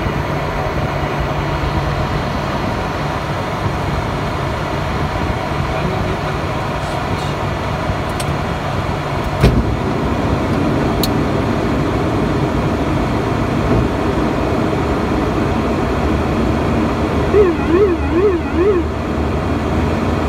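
Steady drone of an ATR 72-600's turboprop engines and propellers, heard inside the cockpit on approach. About halfway through there is a thump, after which the drone's tone shifts. Near the end a warbling tone rises and falls four times.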